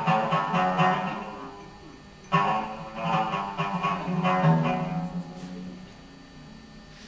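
Berber music played on a plucked string instrument: a run of quick plucked notes, then a strong stroke about two seconds in whose notes ring on and fade away.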